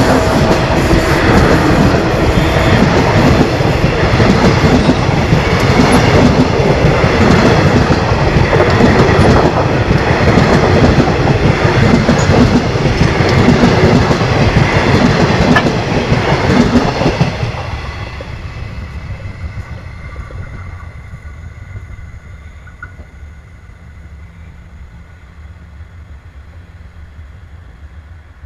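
Rovos Rail passenger carriages rolling past close by, their wheels clattering rhythmically over the rail joints. About two-thirds of the way through, the sound drops away as the last carriage passes. The train's rumble then fades into the distance.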